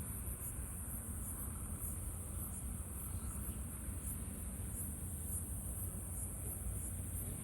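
Insects chirring steadily in a high, lightly pulsing band, over a low rumble.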